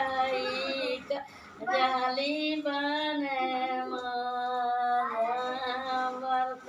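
An elderly woman singing unaccompanied, holding long drawn-out notes, with a short pause for breath about a second in.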